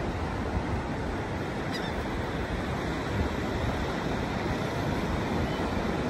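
Ocean surf breaking on a beach, a steady rush of waves with a deep rumble, and a short high gull call about two seconds in.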